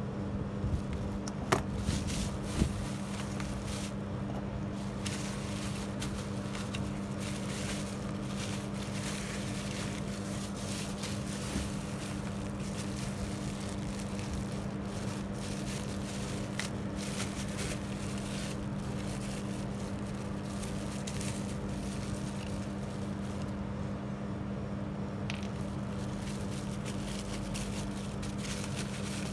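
Bubble wrap crinkling and rustling in irregular crackles as motor faders are unwrapped by hand, over a steady low hum. A few sharp clicks from handling the metal fader come about one to three seconds in.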